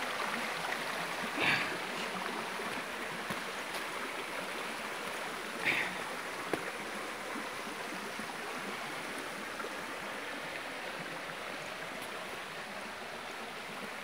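Shallow spring-fed river water flowing steadily over rocks, a continuous rush. Two brief louder sounds stand out, about a second and a half in and again near the middle.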